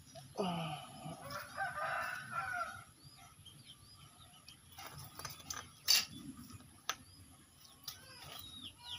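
A rooster crowing once: a long call that starts about half a second in and lasts over two seconds. Faint small-bird chirps come and go, and there is a sharp click about six seconds in.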